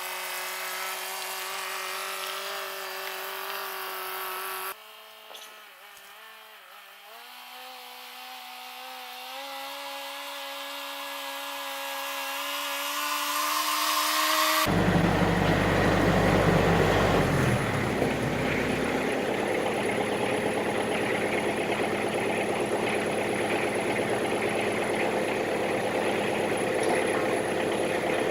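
Machinery in three abrupt sections: a steady droning motor, then a whine that climbs steadily in pitch and grows louder for about ten seconds, then a tractor engine running, loudest for the first few seconds before settling to a steady idle.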